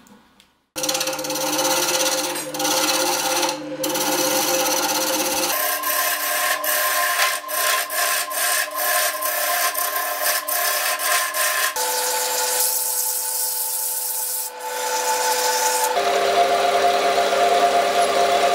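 Wood lathe running, its motor giving steady tones under the scraping of a turning gouge cutting a spinning wooden spindle. It starts abruptly about a second in and changes sharply several times. Near the end a twist drill in the tailstock chuck bores into the end of the turning spindle.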